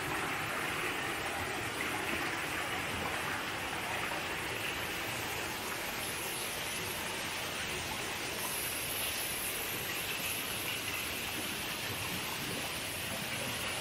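Shallow rocky stream running over stones and a small cascade: a steady rushing of water.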